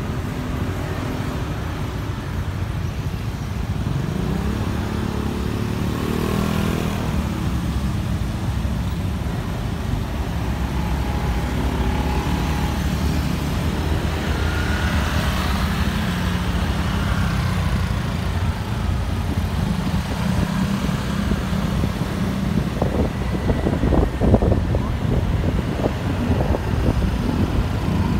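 Scooter and car engines in slow city traffic, heard from a moving scooter: a continuous low running sound whose pitch rises and falls as the bikes pull away and slow. A few sharp low thumps come about three quarters of the way through.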